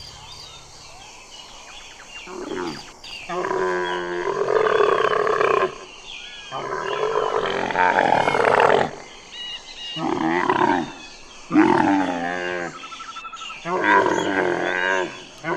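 Camel bellowing: a string of about five long, loud calls with a wavering pitch, each lasting one to three seconds, with short gaps between them, starting about two seconds in.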